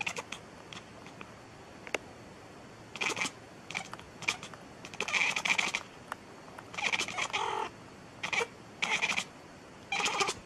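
Domestic cat meowing repeatedly. The string of meows starts about three seconds in, and most are short, with a couple drawn out to more than half a second.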